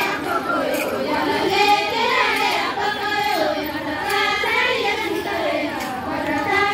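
A group of women singing a Koya Gondi folk song together, many voices at once.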